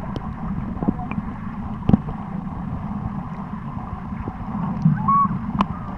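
Muffled underwater noise picked up by a submerged camera: a steady low rumble with scattered sharp clicks and knocks, and a few short wavering squeaky tones near the end.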